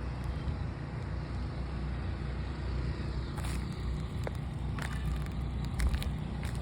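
Steady low motor hum, with a few light clicks in the second half.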